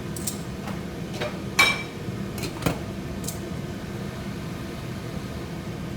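Light clinks and knocks of cookware as potato and carrot pieces go into the steamer: about half a dozen sharp clatters in the first three seconds, the loudest near the middle of them, over a steady low hum.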